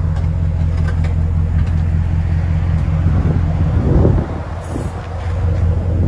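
Ram 1500's 5.7L HEMI V8 idling through a muffler-deleted exhaust, a deep steady rumble from the dual tailpipes as the truck rolls slowly in reverse. About four seconds in the sound briefly dips, then comes back.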